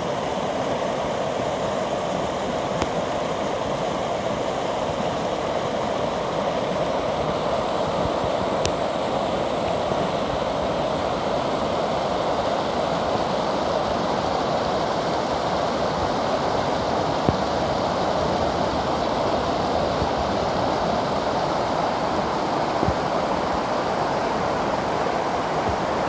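River water rushing steadily as it tumbles over a series of low drops into churning white water.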